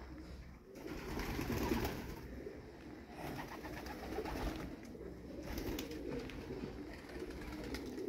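Racing pigeons cooing, several birds at once.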